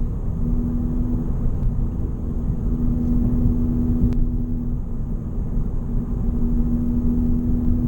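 Straight-piped Honda Civic Sport hatchback's turbocharged four-cylinder and exhaust heard from inside the cabin while driving: a steady exhaust drone over a low rumble of road noise, the drone dipping briefly a couple of times.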